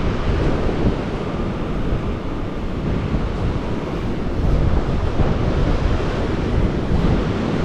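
Wind buffeting a microphone with no windscreen, a steady low rumble, with surf breaking on the beach behind it.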